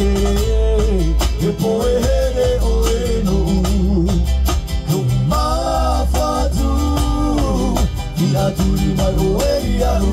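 Live band playing an upbeat song through a PA: men singing together into microphones over strummed acoustic guitar and ukuleles, with a heavy bass line and a steady beat.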